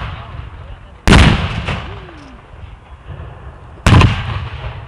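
Two black-powder guns firing blanks, one shot about a second in and another just before four seconds, each a sudden blast that dies away over a second or more.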